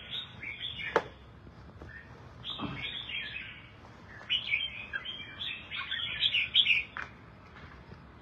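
Caged red-whiskered bulbuls singing in bursts of quick chirping phrases, the longest run from about four to seven seconds in. A sharp click about a second in is the loudest sound, and another comes near seven seconds.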